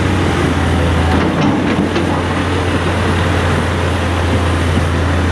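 A large engine running steadily, a low drone under a constant noisy rush.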